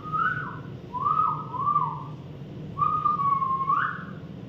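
Clear whistling: three short whistled phrases, each gliding up and down in pitch, the last ending on a rising note.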